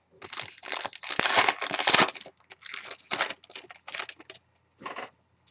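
Wrapping on a pack of baseball trading cards being torn open and crinkled by hand. There is a dense stretch of tearing and rustling in the first two seconds, then shorter intermittent crinkles.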